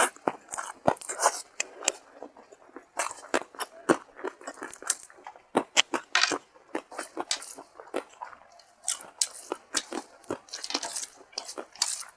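Close-miked eating: a person chewing a mouthful of rice and hilsa fish curry, with irregular crunches and wet mouth clicks several times a second.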